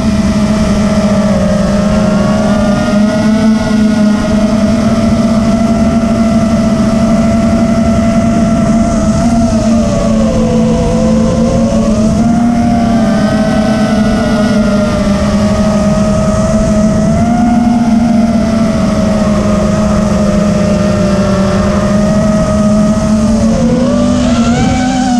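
FPV racing drone's brushless motors and propellers whining steadily. The pitch rises and falls with the throttle, dipping clearly twice.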